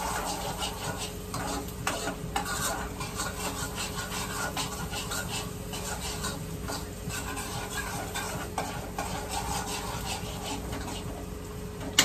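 Chopped onions sizzling as they fry in hot oil in a steel kadai, with a spatula scraping the pan in many irregular stirring strokes.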